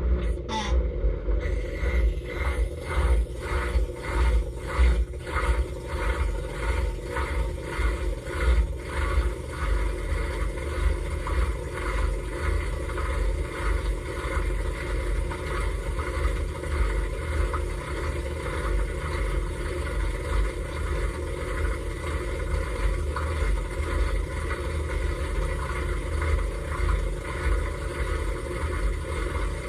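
Dishwasher running, heard from inside the tub: the pump and motor give a steady low hum under a wash of water spray. For the first ten seconds or so the spray comes in rhythmic pulses about twice a second, which then fade into an even rush.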